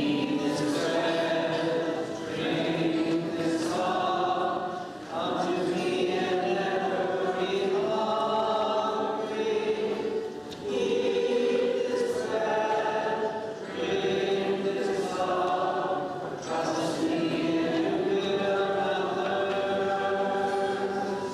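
A group of voices singing a hymn together, in sustained phrases of a few seconds with brief pauses for breath between them.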